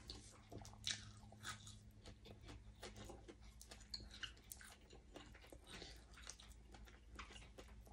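Faint, close-miked chewing of a mouthful of food: soft, irregular mouth clicks and light crunches.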